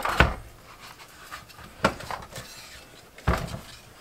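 Hard plastic clunks and knocks as a Mr. Heater Little Buddy propane heater is twisted onto a 1 lb propane cylinder and handled: three sharper knocks about a second and a half apart, with smaller clicks between.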